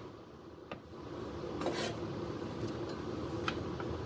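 A few light clinks and knocks of kitchen utensils against a cooking pot over a steady low background noise.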